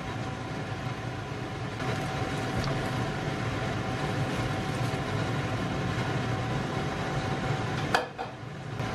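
Steady hum and hiss with a faint, even whine over a steaming wok of simmering curry stew; torn cabbage is tipped into the wok partway through. A sharp click about eight seconds in.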